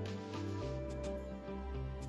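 Background music: held chords over a bass line that shifts to a lower note about half a second in, with light percussion.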